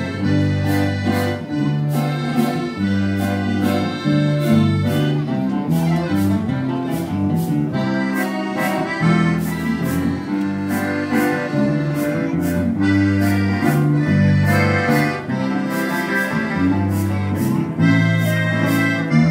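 Accordion playing a waltz over guitar accompaniment, with bass notes that change every beat or two and regular tambourine strikes.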